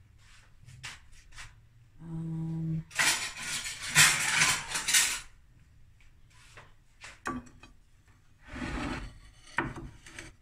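A knife cutting into an iced pound cake, with scraping rubs and light clinks of the blade and crockery against the plate. The longest, loudest scraping stretch comes a few seconds in, and a shorter one near the end.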